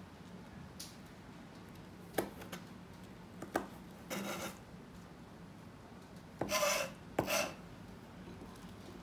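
Chef's knife on a plastic cutting board while red chilli is cut: two sharp knocks of the blade on the board, then three short rasping scrapes across the board, the loudest two together near the end.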